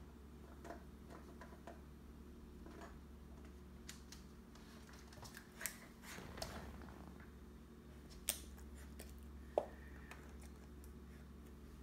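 Malshi dog rubbing and rolling on a towel after its bath and scampering on a hardwood floor: the towel rustles and its claws click and scrabble on the wood, with a few sharper clicks in the second half over a low steady hum.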